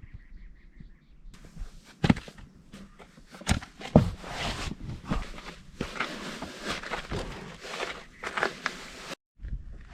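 Irregular footsteps on dry desert ground. They start about a second in and cut off abruptly near the end.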